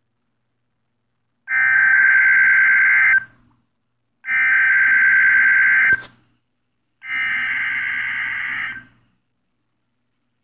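NOAA Weather Radio SAME (Specific Area Message Encoding) header: three bursts of digital data tones, each just under two seconds long and about a second apart, marking the start of the Required Weekly Test. The third burst is a little quieter than the first two, and there is a sharp click at the end of the second.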